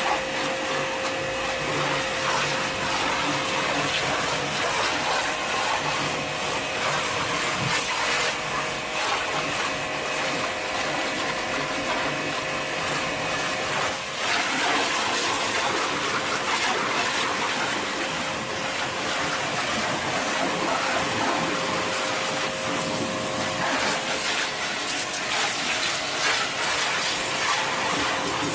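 Hiroma pressure washer running steadily: a constant motor and pump hum under the hiss of its water jet spraying against a car's body panels.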